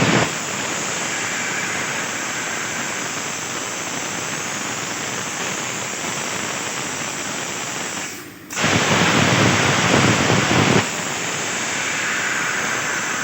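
CNC plasma cutter torch cutting 1.5 mm steel sheet: a steady loud hiss. About eight seconds in it drops away for a moment, comes back louder for about two seconds, then settles to the steady hiss again.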